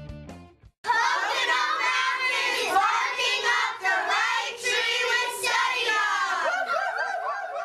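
A group of children and women singing together in chorus. They start about a second in after a brief silence, and the voices thin out near the end.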